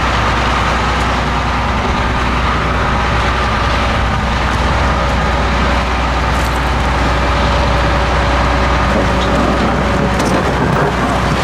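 Volumetric concrete mixer truck running steadily, its engine and mixing machinery giving a constant low hum with a steady higher whine over it.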